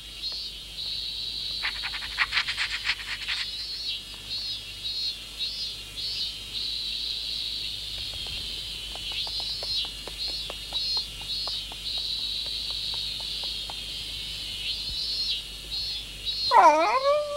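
Insects chirping in steady pulses, with a denser rattling trill about two seconds in. Near the end a dog whimpers, a loud whine that rises and falls.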